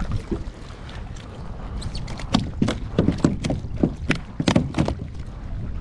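Water sloshing around a plastic kayak, with an irregular run of sharp slaps and knocks, about three a second, through the middle few seconds while a hooked fish is brought up alongside.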